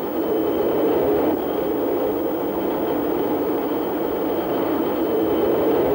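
Steady jet engine noise in a fighter cockpit: the English Electric Lightning's two Rolls-Royce Avon turbojets at reduced power in level cruise, a steady rush with a thin high whine above it.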